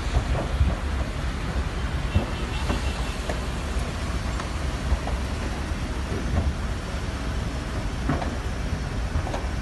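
Large building fire burning: a steady low rumble with scattered short pops and cracks throughout.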